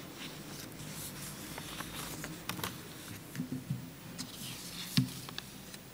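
Sheets of paper rustling and being shifted on a wooden lectern, with scattered soft clicks and a single sharper knock about five seconds in.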